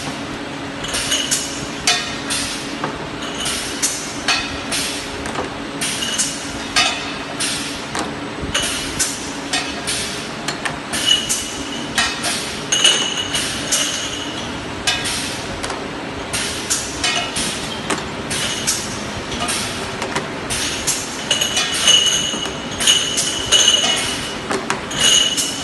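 Semi-automatic tomato paste filling machine working: a steady run of sharp mechanical clicks, knocks and metal clinks, several a second, with short high ringing tones now and then.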